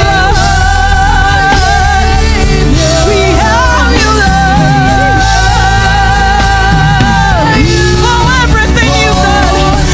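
Church praise and worship music: a singer holds long, wavering notes over a band with heavy, steady bass.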